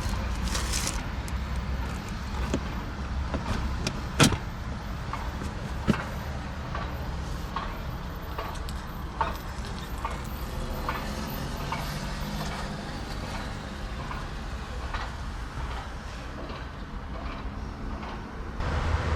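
Scattered clicks and knocks of things being handled inside a car, the sharpest about four seconds in and another about two seconds later, over a steady low hum.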